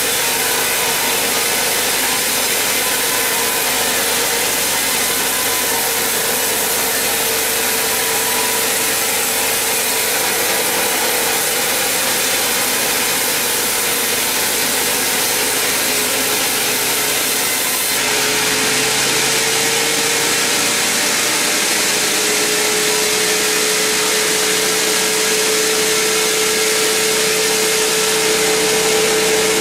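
Sawmill band saw running and cutting lengthwise through a very large mahogany log: a loud, steady rushing of the blade in the wood over a constant hum. The sound changes abruptly about two-thirds of the way through.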